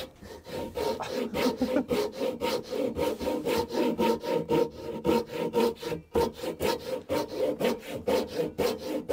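Japanese pull saw cutting across a wooden beam by hand, in quick, even strokes about three a second, with a short pause about six seconds in.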